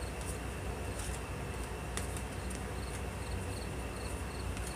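Faint cricket chirping, short chirps repeating about every half second, over a steady low room hum, with one light click about two seconds in.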